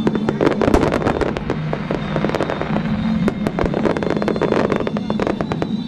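Aerial fireworks shells bursting in quick succession: a dense, continuous barrage of bangs and crackles.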